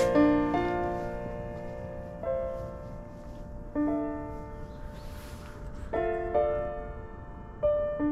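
Background music: slow, gentle piano, single notes and small chords struck about once a second and left to ring and fade.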